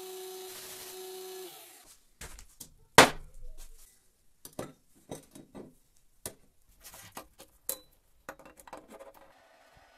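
Bench belt grinder running with a steady hum and hiss as a steel pipe is ground, stopping about a second and a half in. Then scattered knocks and clinks of steel pieces being set down and handled on a wooden deck, the loudest about three seconds in.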